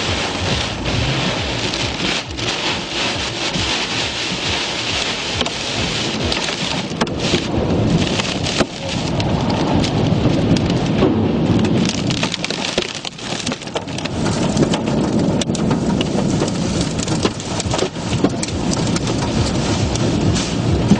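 Tornado's heavy rain and wind pelting a car, a dense steady patter with many sharp hits on the body.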